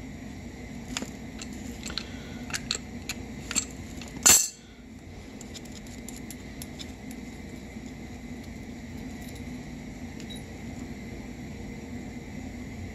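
Light metallic clinks and taps of an adjustable wrench and brass fittings being handled while fitting an electronic compressor auto-drain valve, with a louder clank about four seconds in. After that only a steady low hum remains.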